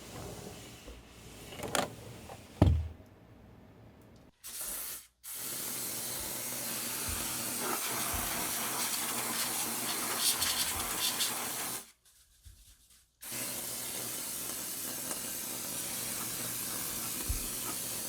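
A few knocks and a low thump, then a steady hiss of water spraying, stopping and restarting twice, as in rinsing air-conditioner parts.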